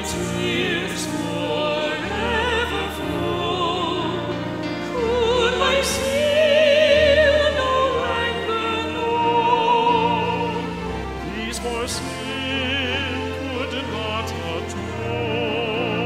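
Background music: a classical-style solo voice sings long notes with wide vibrato over held low accompaniment notes that change every couple of seconds.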